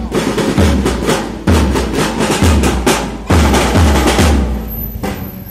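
A children's drum corps playing a marching rhythm on metal-shelled snare drums, rapid strokes with regular deep drum thuds beneath them. The drumming stops about four and a half seconds in.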